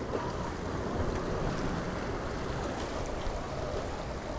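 Ocean surf washing against jetty rocks, with wind buffeting the microphone.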